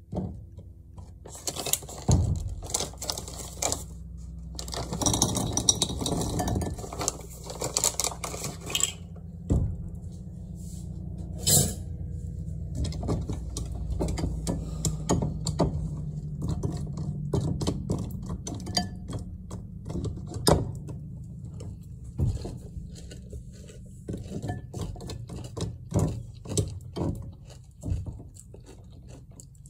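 Caramel-coated popcorn poured from its paper bag into a bowl, rattling and crackling for several seconds. After that, a spoon clinks and scrapes against the bowl, with sharp clicks and eating sounds near the end.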